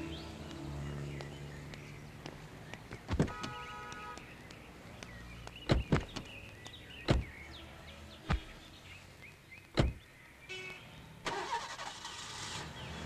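Car doors on a small hatchback opening and slamming shut, several sharp thuds over a few seconds. Near the end the engine starts with a short rush of noise.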